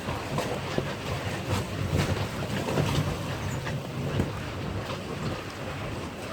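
Storm-force wind gusting, buffeting the microphone with a low rumble, with frequent short knocks and clatters throughout.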